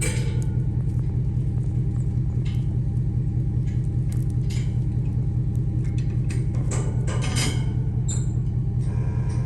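Vehicle engine running steadily, a low even hum with a fast pulse, with scattered light rattles and clicks over it.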